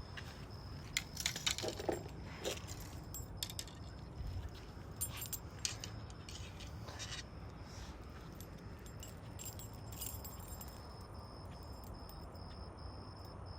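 Fishing tackle handled while a lure is changed: small metal clinks and jangles in irregular clusters, loudest in the first few seconds, with quieter spells between.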